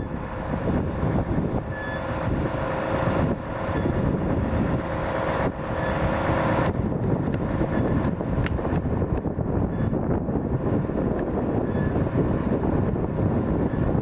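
Mercedes-Benz 2429 truck's diesel engine running steadily while it drives the hydraulics of the Schwing concrete pump boom as the boom unfolds. A steady whine joins about two seconds in and cuts off sharply about seven seconds in.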